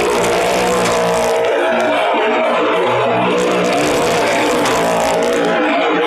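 Engines of small cars and a motorcycle running hard as they circle the wooden wall of a well-of-death pit. Loud and steady, several engines overlapping inside the wooden drum.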